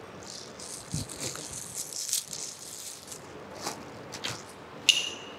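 Clear plastic wrapping crinkling and rustling with small irregular clicks as it is pulled off a new microscope head. Near the end there is a short, sharp, high squeak.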